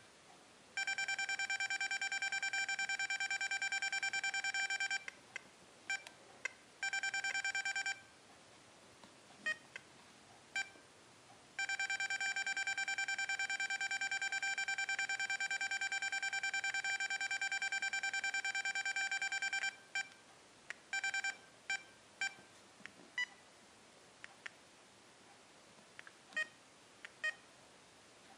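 XP Deus metal detector remote sounding its audio tone as its tone settings are adjusted: a steady electronic tone with a fast buzzing pulse, held for a few seconds at a time (the longest stretch about eight seconds), with short key beeps between.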